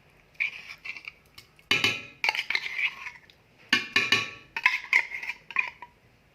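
Metal utensil knocking and scraping against a tin and a pan as canned tuna is emptied in: a run of sharp clinks, each ringing briefly.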